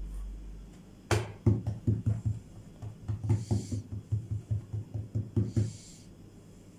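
Hands patting and pressing a round of soft yeasted dough flat on a silicone baking mat: a quick run of soft thuds, about four a second, with a brief swish of the hand sliding over the dough twice.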